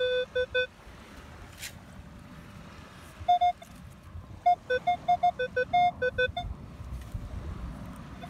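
Minelab Equinox 800 metal detector sounding short, repeated target beeps at two pitches, low and higher, as its coil is swept back and forth over a buried target in beach sand. There is a quick run of beeps at the start, then a longer run from about three seconds in to about six and a half.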